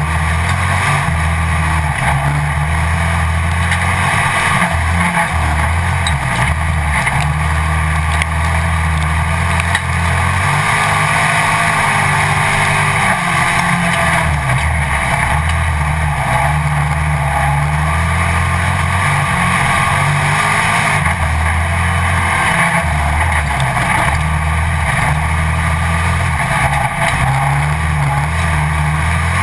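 Pro Stock dirt-track stock car's engine running hard under race load, heard from a camera on the car's own hood, its note rising and falling repeatedly as the throttle comes on and off through the turns, over a steady rushing noise.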